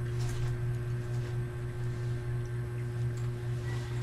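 A steady low hum, with a few faint soft handling sounds.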